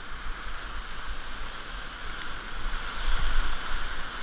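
Rushing whitewater of a river rapid in high water, all around a kayak running through it: a steady, noisy rush that swells about three seconds in.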